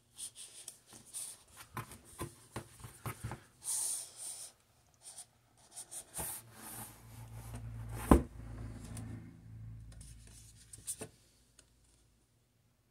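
Cardboard packaging of a mini PC being handled: scraping and rubbing as the printed outer sleeve is slid off the plain inner box, with light taps, and one sharp knock about eight seconds in.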